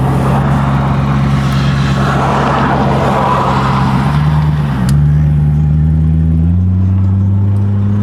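Maserati Quattroporte engine pulling hard under acceleration. About five seconds in there is a click and a brief drop in revs at a gear change, after which the revs climb steadily again.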